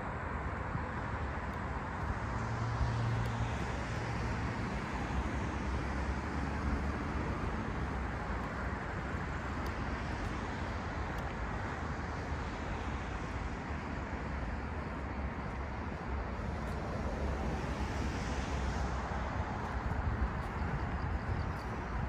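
Steady rush of distant road traffic, swelling and fading a few times as vehicles pass.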